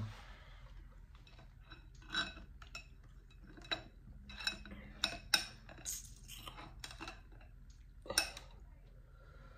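Metal spoon clinking and scraping in a glass bowl of gumbo: a scatter of short clinks and taps, with a louder one near the end.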